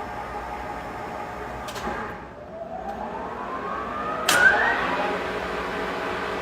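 Chubu CLL-2000 engine lathe running under power with a steady hum from its drive. About two seconds in there is a click, followed by a whine that rises in pitch as the drive speeds up. A sharp clunk comes a little past four seconds, after which the machine runs steadily, slightly louder.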